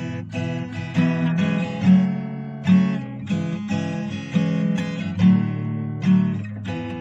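Background music: acoustic guitar strumming chords, a strum about once a second.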